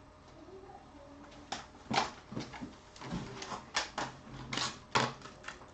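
A dozen or so sharp, irregular clicks and light knocks of small phone parts being handled as another screen is fitted to an iPhone 6 for a backlight test.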